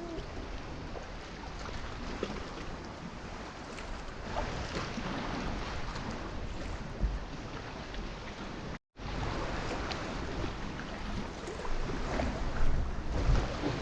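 Sea water sloshing and splashing around a sea kayak, with wind buffeting the microphone. The sound drops out completely for an instant about nine seconds in.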